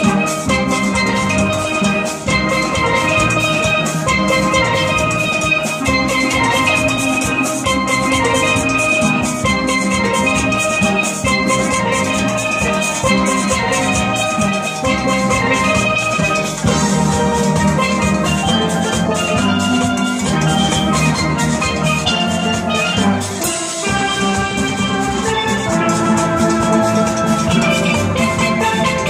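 Steel band playing: many chromed steel pans struck with sticks, their bright pitched notes ringing in layered parts over a steady beat.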